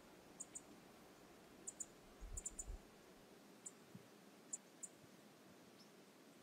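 Near silence, broken by faint, sharp high-pitched clicks scattered every second or so, some in quick pairs, and a brief low rumble a couple of seconds in.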